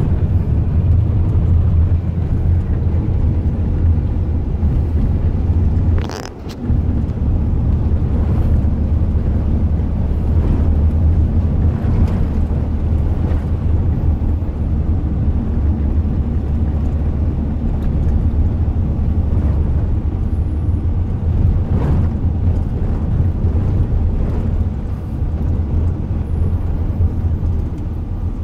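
Steady low rumble of a Ford van driving over a gravel track, heard from inside the cabin: engine and tyre noise with occasional light knocks from the bumps, and one sharper knock about six seconds in.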